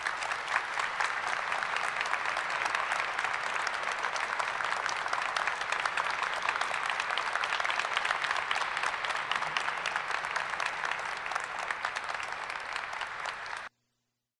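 Audience applauding steadily after a speech, a dense patter of many hands clapping, which cuts off suddenly near the end.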